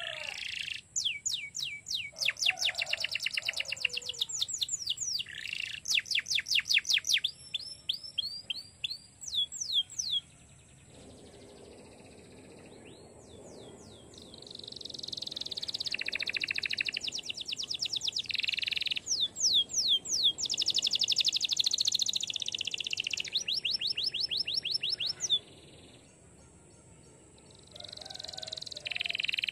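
Domestic canary singing: a long song of rapid rolling trills, each a fast run of repeated sweeping notes, changing in speed and pitch from phrase to phrase. The song breaks off about ten seconds in and again near the end, then resumes.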